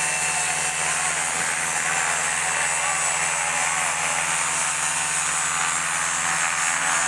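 Paramotor engine and propeller running steadily at high power during a foot-launched takeoff run.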